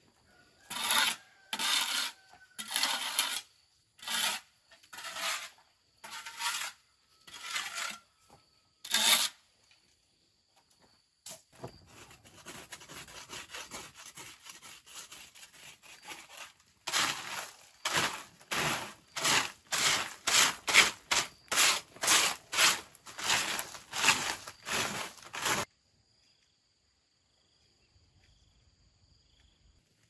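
Repeated scraping strokes of a hand tool: about one a second at first, then a few seconds of continuous scraping, then quicker strokes about two a second that stop suddenly near the end.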